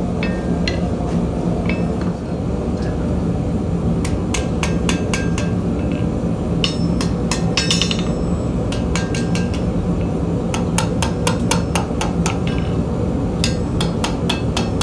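Blacksmith's hammer striking metal on an anvil in groups of quick blows, over a steady low hum.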